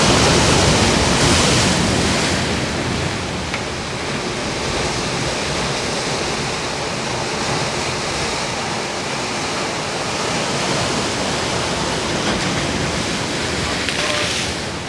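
Ocean surf breaking and washing in, a steady rushing noise that is loudest in the first couple of seconds.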